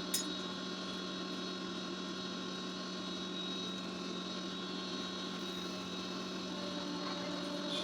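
Steady mechanical hum of a running motor, with one short click just at the start.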